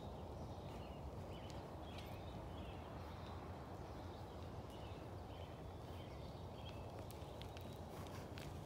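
Steady low ambient rumble with faint, high bird chirps scattered through it.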